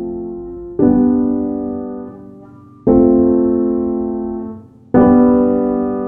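Background music: slow piano chords, one struck about every two seconds and left to ring and fade.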